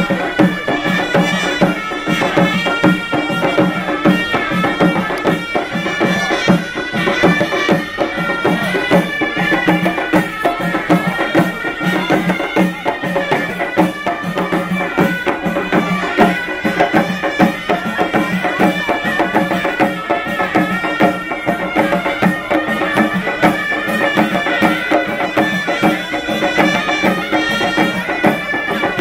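Traditional Moroccan folk music played live by a troupe: fast, steady drumming under a loud, reedy wind-instrument melody held over a constant low note.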